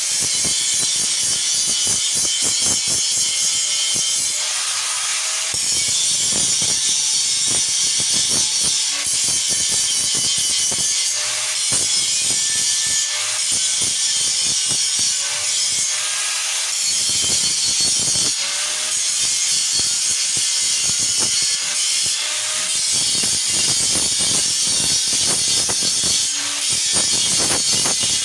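Handheld electric grinder grinding the weld joints of a steel tubular window grill: a continuous harsh, hissing grind of the disc on steel, the motor's whine dipping and rising as the tool is pressed on and eased off.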